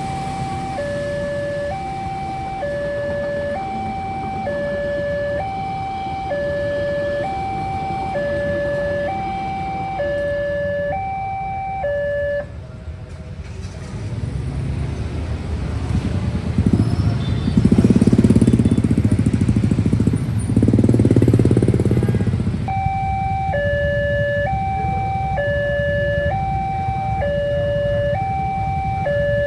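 Railway level-crossing warning alarm sounding a steady two-tone signal, alternating high and low about once a second. It cuts off about twelve seconds in, a loud low rumbling noise swells for several seconds, and the alarm starts up again near the end.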